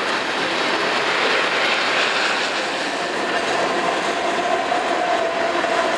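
Loaded coal hopper cars of a long freight train rolling past: a steady rumble and rattle of wheels on the rails. About halfway through, a steady high squeal of wheel flanges joins in.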